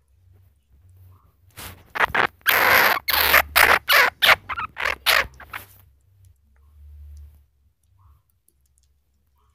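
Flying squirrel calling: a rapid run of about a dozen harsh, noisy chirps over some four seconds, loudest in the middle.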